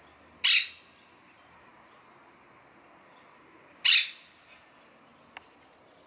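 Monk parakeet giving two short, harsh squawks about three and a half seconds apart. A single sharp click follows near the end.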